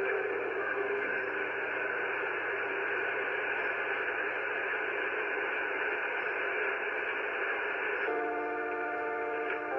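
Shortwave radio reception of a pirate station: steady static hiss in the receiver's narrow audio band, with music faint beneath it that comes through clearly about eight seconds in.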